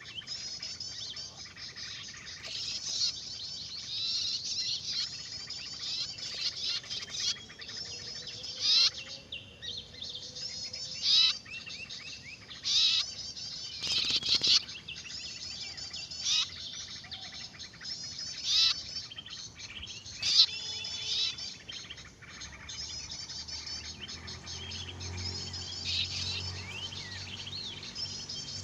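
Busy chatter of many small songbirds chirping and trilling together, with louder sharp chirps standing out every second or two.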